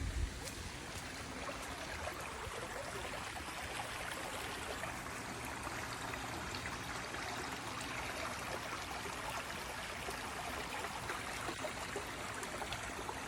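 Rain-swollen floodwater rushing steadily down an overflowing trench, a continuous even rush of running water. There is a brief low bump on the microphone right at the start.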